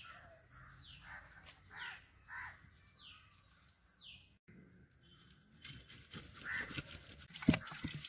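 Birds calling outdoors: a short high falling note repeated about once a second, with a few crow caws in the first three seconds. Near the end come soft knocks and rustling.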